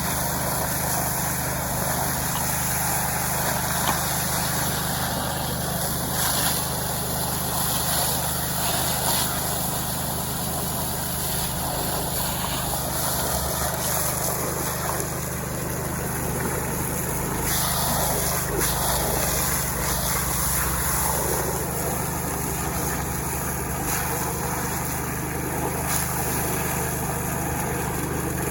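Small Robin petrol engine running steadily at constant speed, powering gold-prospecting equipment.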